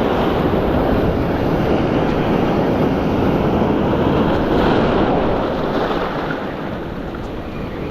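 Steady rushing of surf mixed with wind buffeting the microphone, easing a little near the end.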